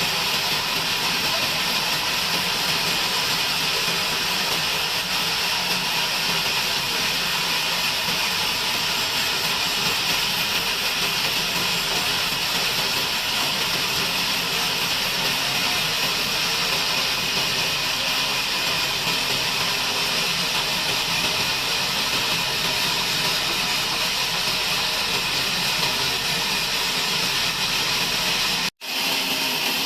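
Sawmill bandsaw cutting through a log: a steady, even hiss of the blade in the wood that never lets up. It cuts out for an instant about a second before the end.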